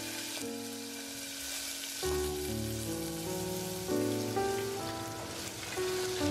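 Tomatoes sizzling in hot mustard oil in a pressure cooker, a steady crackling hiss, with background music playing underneath.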